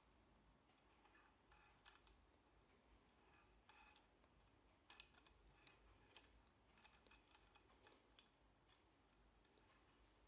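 Faint, irregular metallic clicks and ticks of lock-picking tools working inside an ABS cylinder lock while fishing out its magnet, one every second or two.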